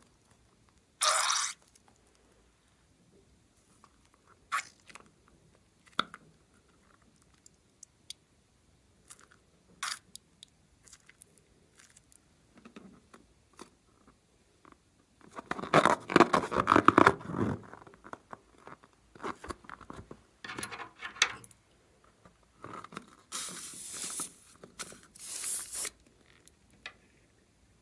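Slime being handled by hand: pressed, poked and pulled in irregular crackly bursts with short quiet gaps between them. The longest and loudest bout of squishing comes a little past halfway.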